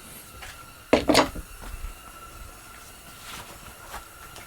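A single sharp clunk about a second in, with a brief ring after it, then a few faint knocks over quiet garage room tone.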